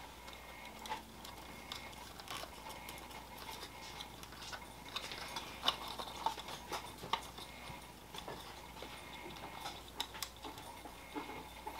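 Scattered small, irregular clicks and taps of hands handling a plastic model passenger car and small wiring parts on a workbench, a few sharper ones in the middle and near the end, over a faint steady hum.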